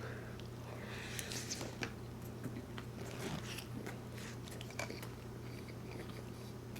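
A person chewing and biting In-N-Out fast food close to the microphone, with many small irregular mouth clicks and crunches.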